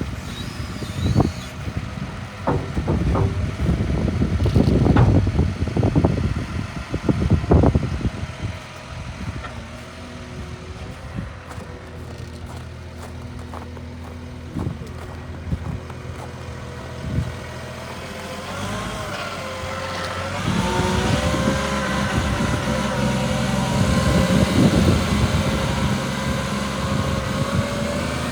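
Volvo L70G wheel loader's diesel engine running, with a series of heavy clunks and knocks in the first several seconds. In the last third the engine revs up and works harder, with a rising, wavering whine.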